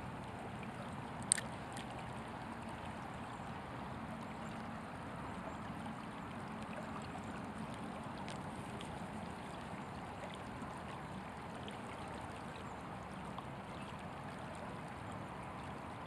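Steady rush of a shallow creek's flowing water, with one short sharp click about a second in.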